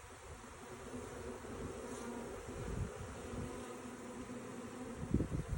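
A honeybee swarm buzzing in a steady, low hum. A few low thumps come near the end.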